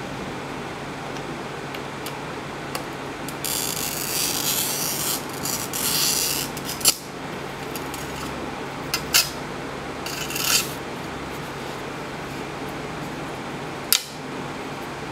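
Hand glass cutter scoring a sheet of textured stained glass along a steel ruler: a high, hissing rasp in two strokes a few seconds in and a shorter one later, with a few sharp clicks of the cutter and ruler. A sharp snap near the end as the scored glass is broken, over a steady low room hum.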